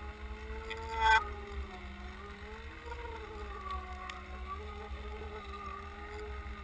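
Boat motor and propeller heard underwater through a towed camera's housing: a muffled, wavering whine that slowly rises and falls in pitch over a low rumble of water rushing past. A brief louder knock about a second in.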